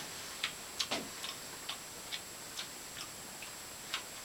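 A series of light, faint clicks, a little over two a second, with no speech.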